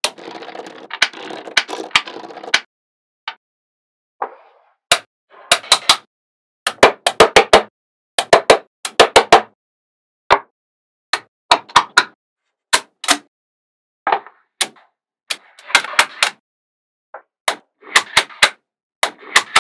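Small magnetic balls clicking sharply as they snap together, singly and in quick runs, with a dense rattle of balls for the first two and a half seconds.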